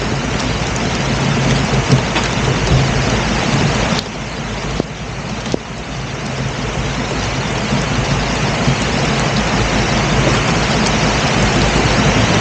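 A boat's engine running steadily under way, under a loud rushing of wind and water noise. The rushing drops briefly about four seconds in.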